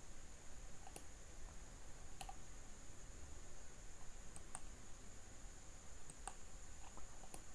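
Computer mouse clicking: about eight short, sharp clicks at irregular intervals, some in quick pairs, over a faint steady high-pitched whine.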